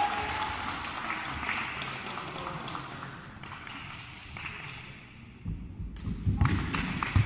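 Hall ambience between volleyball rallies: scattered taps and thuds of a volleyball and players' feet on the wooden court floor. It grows busier, with more thuds, about six seconds in.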